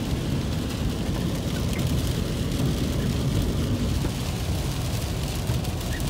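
Steady low rumble of a vehicle driving on a rain-wet highway, heard from inside the cab: engine and tyre noise with a hiss of water from the road.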